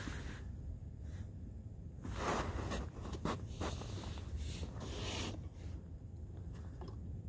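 Rustling and scraping of a heavy insulated snowsuit as an ice angler crouches and shifts on the ice, in short irregular bursts over a low steady rumble.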